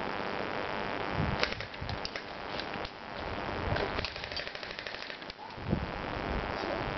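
Airsoft guns firing during a skirmish: scattered sharp pops and snaps, some in quick clusters, mostly from about a second and a half to five and a half seconds in.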